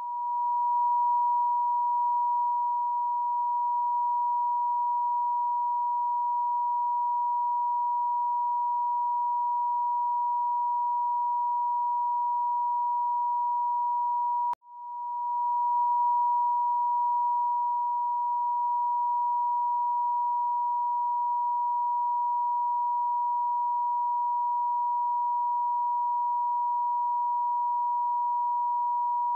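A steady 963 Hz pure sine tone, the Solfeggio frequency used for crown chakra sound healing. About halfway through it cuts out for a moment with a small click, then swells back in.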